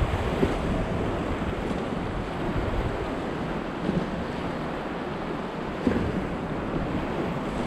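Rushing whitewater of a river rapid churning around a raft, a steady loud wash, with low wind rumble on the microphone and a couple of brief knocks.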